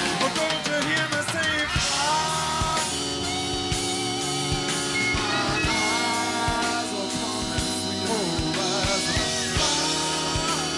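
Live rock band playing an instrumental passage: a lead guitar holds and bends sustained notes over a steady drum beat, bass and keyboards.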